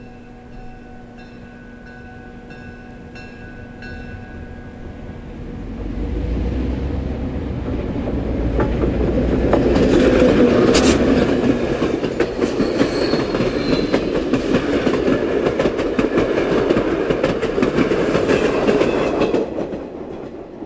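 A diesel-hauled passenger train approaches with a bell ringing steadily for the first few seconds, then the locomotive passes close by and the passenger cars follow, wheels clicking over the rail joints. It is loudest through the middle and fades near the end as the caboose goes by.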